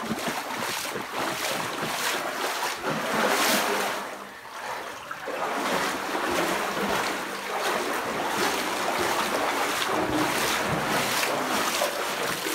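A runner's feet splashing and sloshing through shallow water on a flooded path, stride after stride, with a brief lull around the middle.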